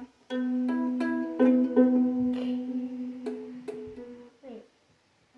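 A ukulele being strummed unevenly, each strum left to ring out: several strums close together in the first two seconds, two more past the middle, a short pitch slide, then it stops shortly before the end.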